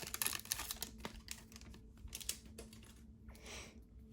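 Faint crinkling of a baseball card pack's foil wrapper and light clicks of the cards being handled. The clicks thin out after the first second, with a soft rustle near the end.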